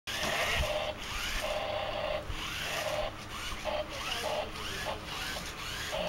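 Toy remote-control car's small electric motor and gearbox whirring in repeated short bursts, stopping and starting several times.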